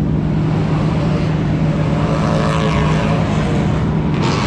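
An engine running steadily with a constant low hum, its pitch shifting briefly about two to three seconds in.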